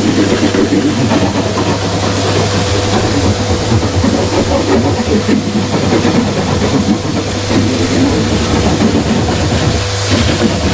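Vacuum cleaner running steadily, loud and close, sucking up drill dust from holes drilled in a fibreglass shower tray, with a strong low motor hum under the rushing air.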